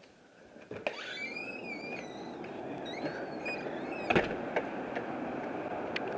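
A door clicks open about a second in and steady wind noise rushes in, with a few high wavering squeaks. A sharp knock about four seconds in is the loudest sound, and a lighter one comes near the end.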